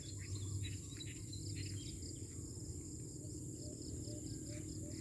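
Outdoor chorus of insects: a steady high-pitched drone with a fast pulsing chirp, over scattered bird chirps that thin out after about two seconds. A run of short, soft low chirps comes in past the middle, over a low rumble.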